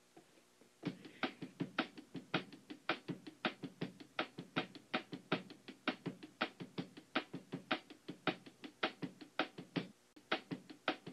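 A quick, even series of sharp knocks, about three to four a second in a repeating accented pattern, starting just under a second in and pausing briefly near the end before carrying on.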